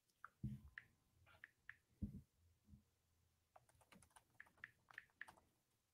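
Faint, irregular clicking of typing on a keyboard, a light rattle that sounds like maracas, with a denser run of keystrokes in the second half. Two louder low thumps come about half a second and two seconds in.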